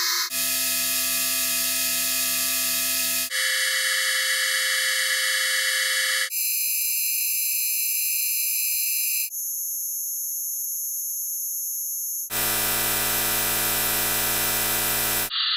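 Synthesized sonification of atomic emission spectra: each chord is a sum of steady sine tones, one per spectral line of an element, with the light frequencies lowered by ten octaves. A new chord replaces the last about every three seconds, running through strontium, yttrium, zirconium, niobium and molybdenum, with technetium starting near the end. Some chords are high and thin, while molybdenum's reaches from low to high.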